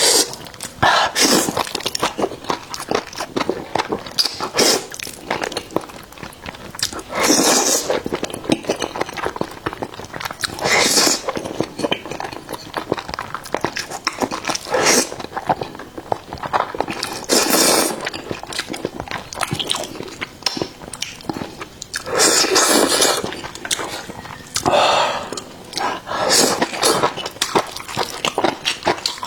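Close-miked eating of sticky jajang noodles with enoki mushrooms: steady wet chewing and smacking, with a louder slurp or gulp about every three to five seconds.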